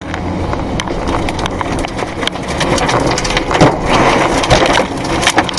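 Severe thunderstorm: a steady loud rush of wind and rain with a deep rumble beneath, peppered with many sharp knocks and cracks, the loudest about three and a half seconds in.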